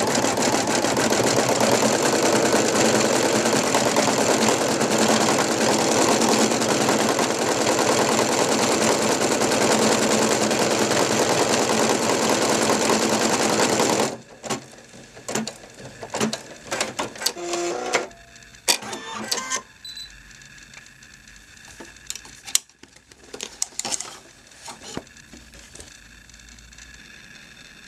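Brother NV2600 computerized embroidery machine stitching steadily, a fast continuous needle rattle that stops abruptly about halfway through. After it stops come scattered clicks and knocks.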